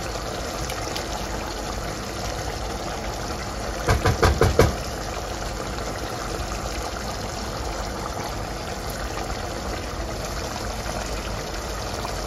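Chicken frying in a pot with a steady sizzle, broken about four seconds in by a quick run of about five spoon knocks against a bowl or the pot rim as the spiced yogurt mixture is scraped in.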